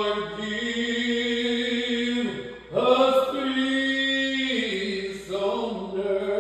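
A voice singing a slow melody in long held notes that step up and down in pitch, with a short break for breath about two and a half seconds in.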